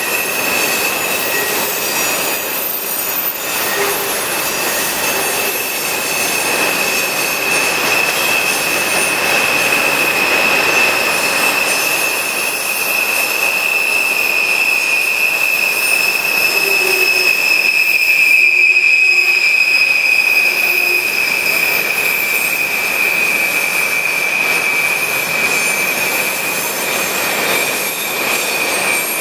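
Freight train of tank cars rolling through a sharp curve, its steel wheel flanges squealing against the rail in one steady, high-pitched squeal over the rolling rumble of the cars.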